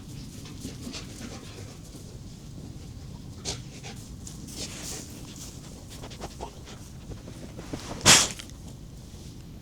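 A pet dog moving about close by, with small scattered clicks and rustles, and one short, loud burst of noise about eight seconds in.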